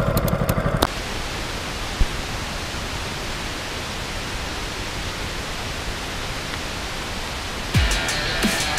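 The dredge's Honda engine runs for under a second, then a steady hiss of water running from a small hose into a plastic gold pan for the clean-out, with one click about two seconds in. Music with deep falling bass thumps comes in near the end.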